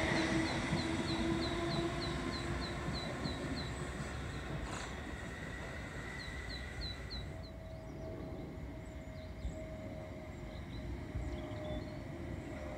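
Electric multiple unit running away down the line, its motor whine and rail rumble fading over the first couple of seconds to a low steady rumble. A quick high chirp repeats about three times a second through the first few seconds. A faint steady hum from the next train approaching comes in about halfway through.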